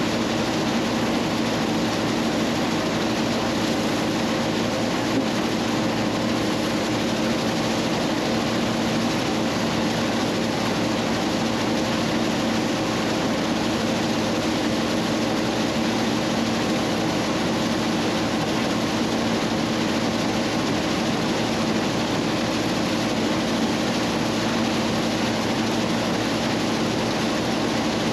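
Combine harvester running steadily at constant engine speed while harvesting soybeans: an even machine noise with a low hum that does not change.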